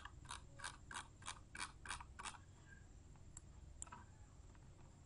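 Computer mouse clicking faintly: a run of about eight evenly spaced clicks, roughly three a second, then two single clicks about a second later.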